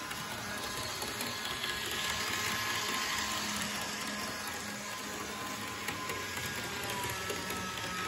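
Bachmann HO-scale model train running steadily around an oval of track: a constant whir from the locomotive's electric motor and gearing, with light clicking from the wheels on the rails.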